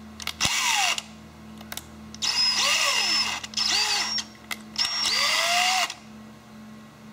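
Cordless DeWalt drill with a small #57 bit run in four short trigger squeezes, its motor whine rising and falling in pitch each time, while it drills small holes. A low steady hum runs underneath.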